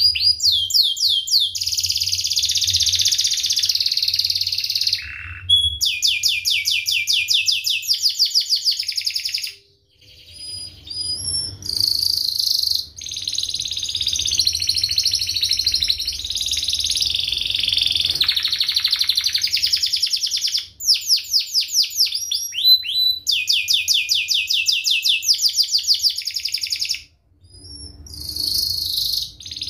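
Domestic canary singing a long, fast song of rapid rolled trills and sharp chirps, the notes repeating many times a second. It breaks off briefly a few times.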